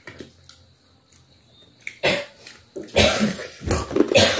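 A person coughing in several loud bursts, beginning about two seconds in.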